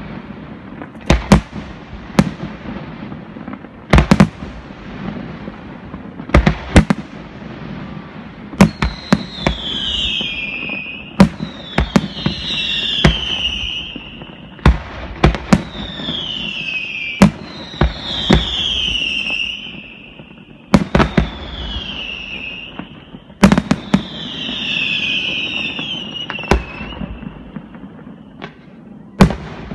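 Aerial fireworks display: sharp shell bursts go off at irregular intervals, and from about nine seconds in a run of about six falling whistles, each lasting a second or two, sounds between the bangs.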